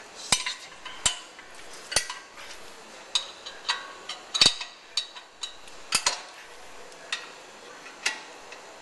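Sharp metallic clinks and clacks at irregular intervals, about a dozen, from a ratchet wrench working on the bolts of a front brake caliper bracket.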